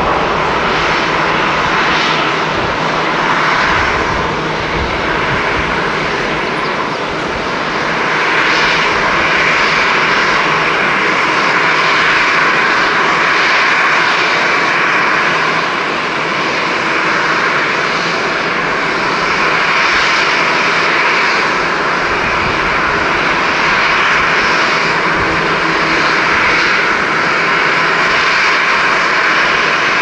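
Jet airliner engines running, a steady loud noise that grows a little louder about eight seconds in.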